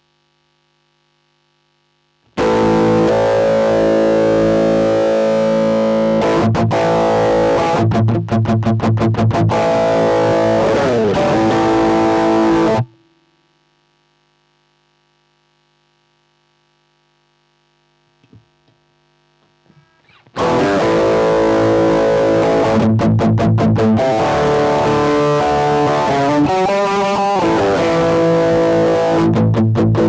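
Electric guitar played through a Boss DN-2 Dyna Drive overdrive pedal: loud, distorted chords with stretches of short, choppy strokes. It starts about two seconds in, breaks off into near silence for several seconds around the middle, then resumes.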